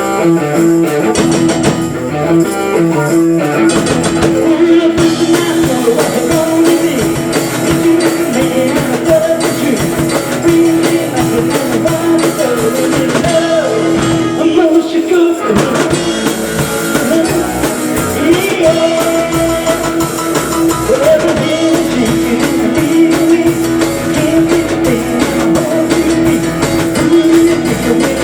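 Live rock and roll band playing, with guitar and a drum kit.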